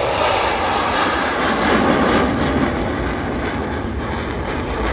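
Airplane engine noise, steady, with its highest part fading toward the end as the aircraft draws away.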